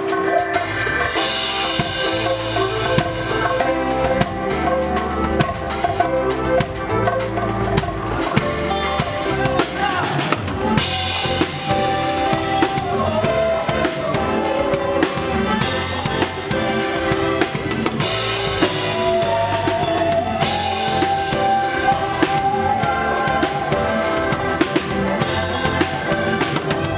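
Live band music with a drum kit keeping a steady beat under piano and a horn section of trumpet and saxophones.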